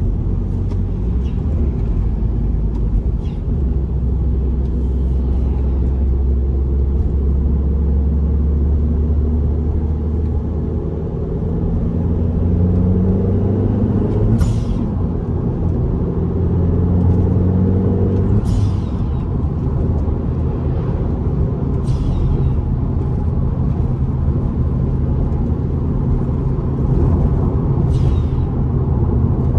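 Car engine and road noise while driving, steady at first. The engine pitch climbs between about 12 and 18 seconds in as the car accelerates. A few short hisses come near the middle and end.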